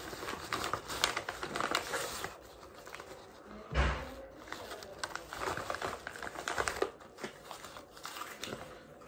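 Paper mailing envelope being torn open and handled: irregular crinkling and rustling of the paper as the package inside is worked out, with one dull thump about four seconds in.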